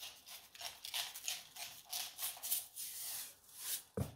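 Salt being shaken from a shaker over a tray of chicken: grains rattling in quick, even strokes, about four a second. A single knock near the end.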